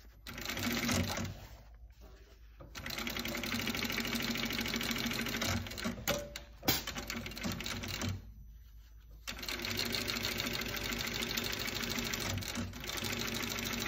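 Industrial cylinder-arm sewing machine stitching a new palm onto a leather-and-nylon hockey glove, running in three spells broken by pauses of about a second while the glove is repositioned.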